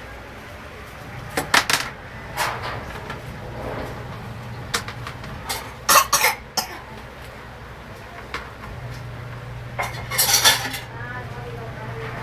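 Scattered sharp clinks and knocks, with a cluster of clatter about six seconds in and another about ten seconds in, over a steady low hum.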